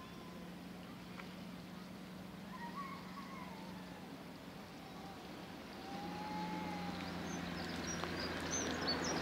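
A small child crying faintly in the distance, a couple of drawn-out wavering wails, over a low steady hum of outdoor background noise.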